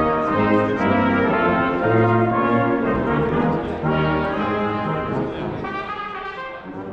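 Brass band playing, with sustained trombone, trumpet and horn notes; the music grows softer over the last couple of seconds.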